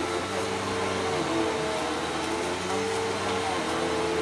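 Bissell PowerForce Helix Turbo upright vacuum cleaner running steadily as it is pushed over carpet. Its motor hum wavers slightly in pitch.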